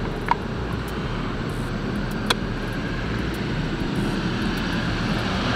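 A steady background engine drone, with two sharp clicks, one just after the start and a louder one about two seconds in.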